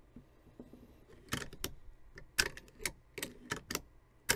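Sharp metallic clicks, about eight of them at an uneven quick pace beginning a little over a second in, from the finger lever and bolt of a partly reassembled Marlin lever-action rifle being handled and worked.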